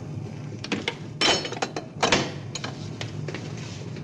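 Several sharp metallic clanks and knocks, the two loudest about one and two seconds in, the first with a brief ring, over a steady low hum.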